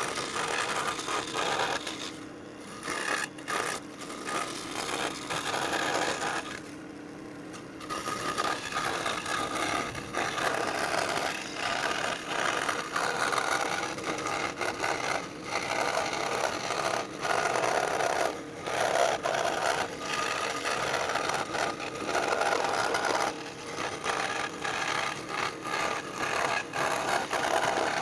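Electric scroll saw running and cutting through wood, a steady busy buzz that grows quieter for a moment about two seconds in and again around seven seconds.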